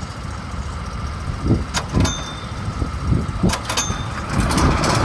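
Go-kart engines running on the grid, with a few sharp knocks and clicks as a kart is handled; the engine sound swells louder near the end.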